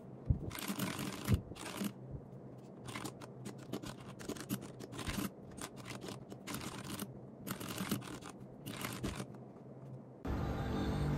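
Typing on a mechanical keyboard: quick, irregular key clacks at varying pace, stopping a little before music comes in near the end.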